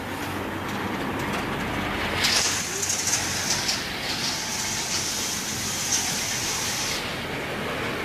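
Steady noise of road traffic, a truck on the road, with a low engine hum under a hiss that comes in about two seconds in and drops away about a second before the end.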